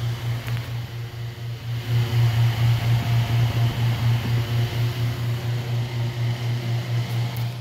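Stand-up tanning booth running with all its UV lamp banks lit and working: a loud low hum that pulses about four to five times a second and grows louder about two seconds in.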